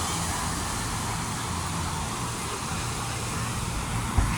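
Ocean surf washing onto the beach, a steady rushing noise with a low rumble, and a brief low thump near the end.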